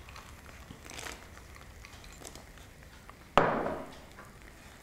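Quiet kitchen handling as cashews are added to a pan of halwa: a faint rustle about a second in, then one sharp clatter about three and a half seconds in that fades within half a second.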